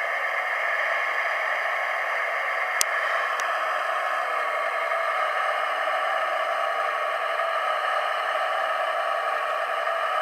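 Electric motor and gearbox of a radio-controlled 8x8 truck whining steadily under drive, with a sharp click about three seconds in.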